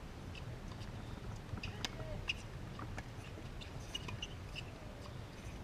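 Faint short squeaks of tennis shoes on a hard court, with a few sharp knocks of a tennis ball being struck or bouncing, over a low steady background rumble.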